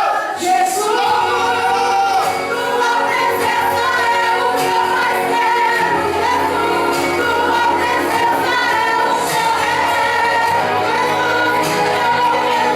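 Gospel worship song: several voices singing a slow, sustained melody over instrumental accompaniment.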